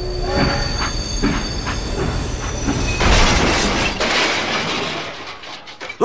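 Train sound, likely a dubbed effect: wheels clacking at a steady beat of about two knocks a second, then a louder rushing noise from about three seconds in that eases off near the end.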